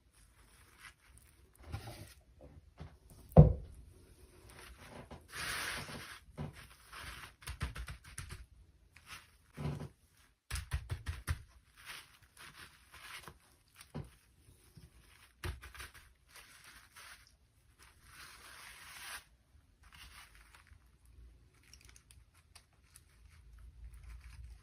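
Toy packaging being opened by hand: tearing and rustling in short bursts, with scattered clicks and one sharp knock about three seconds in.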